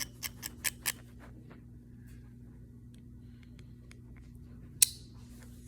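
Light clicks and ticks of a Swiss Army knife being handled as its fold-out tools are worked, with a run of clicks in the first second and one sharp snap near the end.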